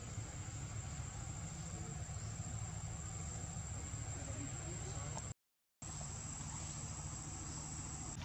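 Outdoor ambience: a steady high-pitched insect drone over a low rumble, broken by a sudden half-second drop to silence about five seconds in.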